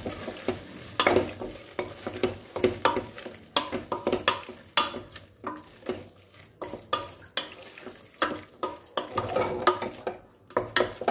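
A spoon stirring and scraping a thick onion-tomato masala around a stainless steel pressure cooker pot, about two scrapes a second, over the sizzle of the masala frying in oil.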